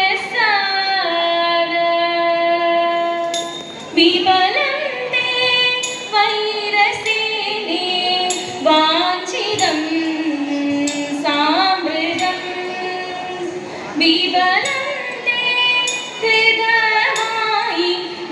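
Women's voices singing a Thiruvathirakali song in a slow melody with long held notes and gliding turns, heard through a stage sound system in a large hall. Sharp percussive strikes fall about once a second under the singing.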